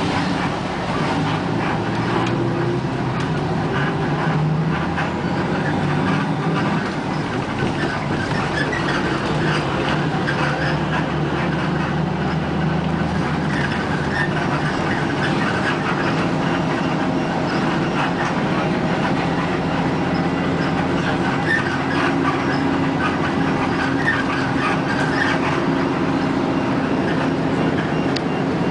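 Ride noise inside a moving vehicle: a steady rumble and low hum with many small squeaks and rattles.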